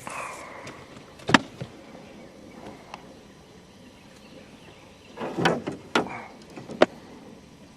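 A few sharp knocks and clatters over quiet outdoor background: a loud knock about a second in, a small tick around three seconds, a short run of clattering around five to six seconds in, and one more sharp knock near the end.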